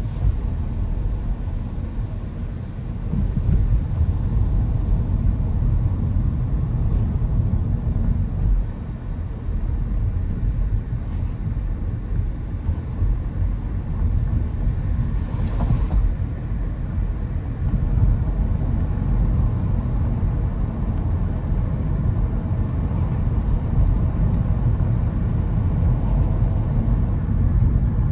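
Car driving, heard from inside the cabin: a steady low rumble of road and engine noise.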